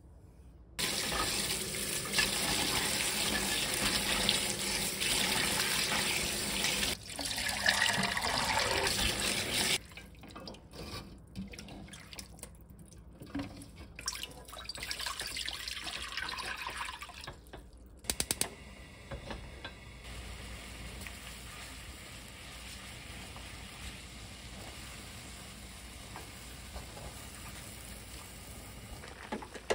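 Tap water running into a stainless steel sink as sweet potato stems are rinsed, stopping suddenly after about nine seconds. Later, water is poured from a bowl into a wok for about four seconds, followed by the steady, quieter sound of the water heating and bubbling in the pan with the stems in it.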